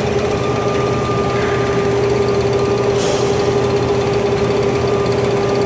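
Snack production line machinery running steadily: motors, roller wheels and belt conveyors, with a constant hum and a fast, even mechanical rattle underneath. A brief hiss comes about three seconds in.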